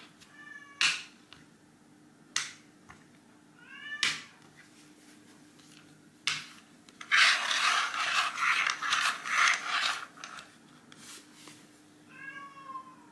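Red tabby cat meowing three times, short meows that rise and fall, one near the start, one about four seconds in and one near the end. Between them come sharp clicks of plastic bottle caps being set down on the wooden floor, and in the middle a loud few seconds of scraping and rustling.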